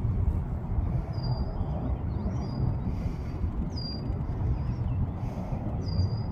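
Steady low rumble of a distant jet airliner. A small bird repeats a short high chirp that drips down and then holds, several times.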